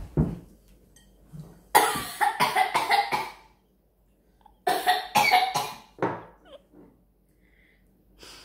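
A boy coughing and spluttering in two fits of harsh, quick bursts, one about two seconds in and another about five seconds in, gagging on a food he finds disgusting.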